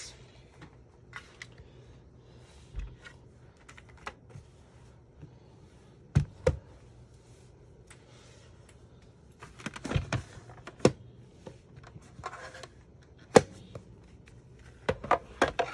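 Scattered sharp clicks and taps of hard plastic being handled as the fold-out trays of a Stampin' Cut & Emboss die-cutting machine are opened and set down, with the loudest click late on.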